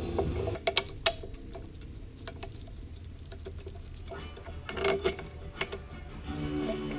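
A few sharp metallic clicks and clinks from hand work on motorcycle clutch parts and tools: two clicks about a second in and a small cluster about five seconds in.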